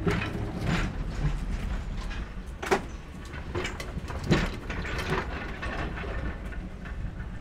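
Vintage electric tram running on its track: a steady low rumble with scattered clicks and two sharp knocks, one a little before the middle and one just after.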